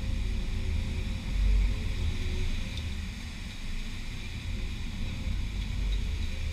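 Seaside ambience: wind rumbling unevenly on the microphone over the steady hiss of surf washing onto the beach.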